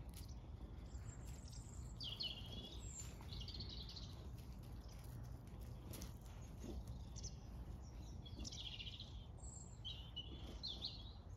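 Small birds chirping in several short bursts over a low, steady outdoor background rumble.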